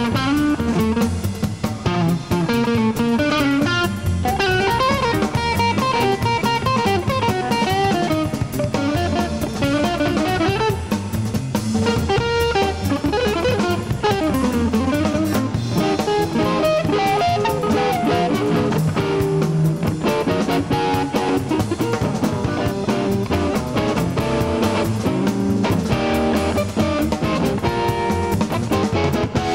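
Live blues band playing: a hollow-body archtop electric guitar plays quick runs of notes over a drum kit.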